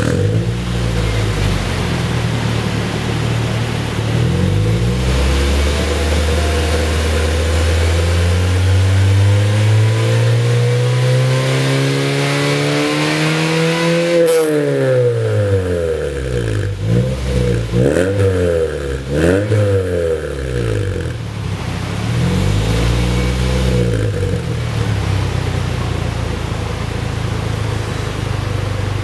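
Exhaust note of a 2006 Toyota Vios's four-cylinder engine through a ProDrager Silent Ti aftermarket muffler, heard at the tailpipe. It idles, is revved slowly up and back down, then blipped quickly several times before settling back to idle.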